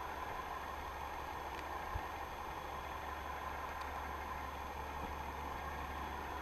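A boat engine idling, heard underwater as a steady, even hum with a deep low drone and a mid-pitched band. There is a single faint tap about two seconds in.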